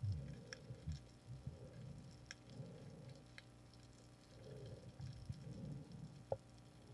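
Faint underwater sound as a diver handles speared fish on a stringer: muffled low thumps and rumbling from movement in the water, with a few scattered sharp ticks.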